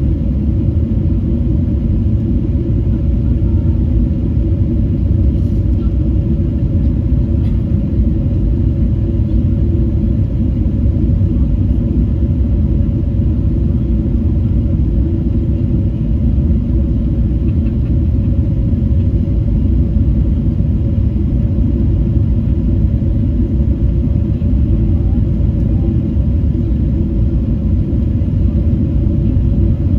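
Steady low rumble inside the cabin of a Boeing 777-300 rolling on the ground just after landing.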